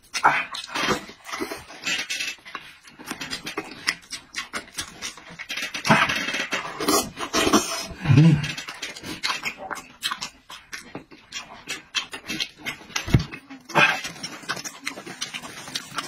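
Close-up eating sounds: a man chewing, lip-smacking and slurping pieces of roast sheep meat dipped in chili sauce, with loud breaths through the mouth, in an irregular stream of wet clicks.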